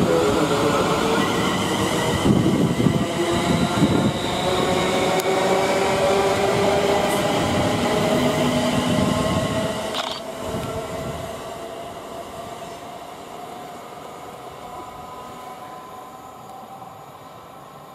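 Class 350 Desiro electric multiple unit accelerating away from a station stop: the whine of its traction motors rises steadily in pitch over the rumble of the wheels on the track. The sound fades steadily over the last several seconds as the train draws away.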